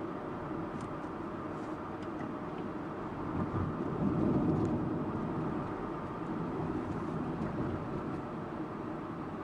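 Steady road and engine noise from a Subaru Impreza Sports Wagon (GG2) on the move, its flat-four running under the tyre noise. The noise swells louder for a second or two about four seconds in, with a few faint ticks.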